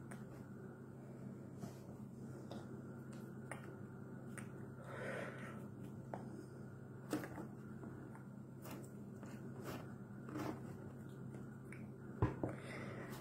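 Steady low hum of a quiet room with scattered soft clicks and taps from a person's hands and mouth while signing, the sharpest about seven seconds in and near the end, with a few faint breaths.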